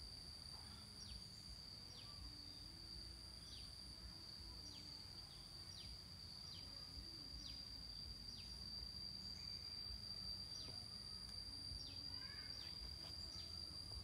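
Faint riverside ambience: a steady, high insect drone, with a bird giving short falling whistles about once a second, over a low rumble.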